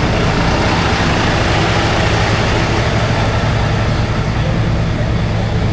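Sentosa Beach Tram, an open-sided articulated bus, driving along at an even pace: a steady low engine hum with road and wind noise, heard from its open rear carriage.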